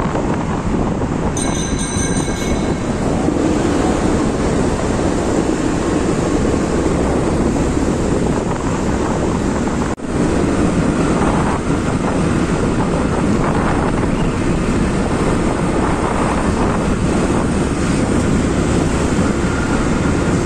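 Steady, loud wind rush on the microphone over the engine and road noise of a moving motorcycle. The noise dips briefly about halfway through.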